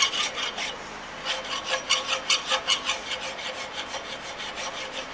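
Hand file rasping across a steel rod clamped in a vise in quick repeated strokes, about three a second, cleaning excess brass and scale off a brazed joint.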